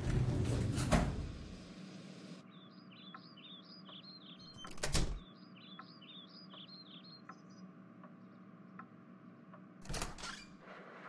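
Short rushing noises, the loudest at the start, another about five seconds in and another near the end, like a door sliding. Between them a small bird chirps in quick repeated notes over a faint steady hum.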